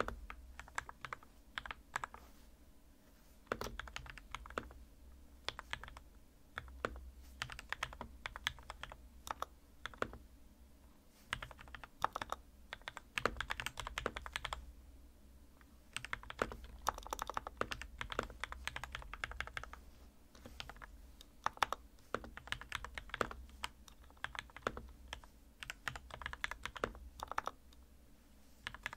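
Typing in bursts with short pauses on an RK61 mechanical keyboard with lubed Gateron Milky Yellow linear switches and tape mod: a stream of rounded keystroke clacks.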